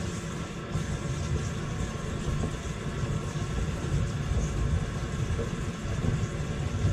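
Kitchen faucet running water into a stoppered sink basin as it fills, a steady rushing splash.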